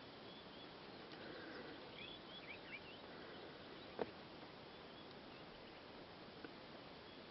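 Faint outdoor ambience: a steady hiss with a few short, high, bird-like chirps between two and three seconds in, and one sharp click about four seconds in.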